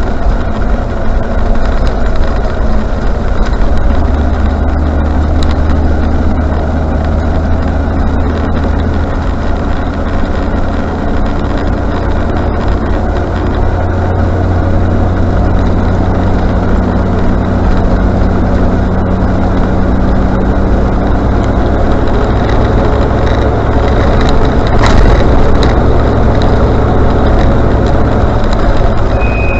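Range Rover Classic running, with steady engine and road noise throughout. Near the end comes a brief high-pitched squeal, the brake squeal the vehicle is known for.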